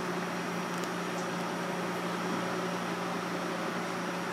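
Steady hum and hiss of running kitchen equipment, with a couple of faint light clicks about a second in.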